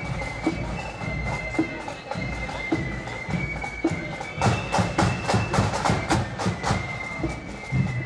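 Marching flute band playing: a high flute melody over a steady marching drum beat, with a busy run of snare drumming about halfway through.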